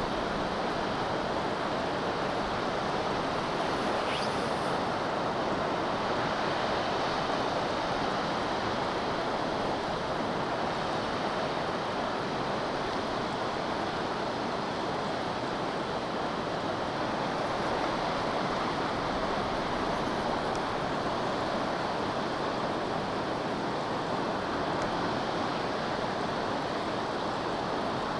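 Steady rushing noise of a large waterfall, Akiu Great Falls, pouring without letup.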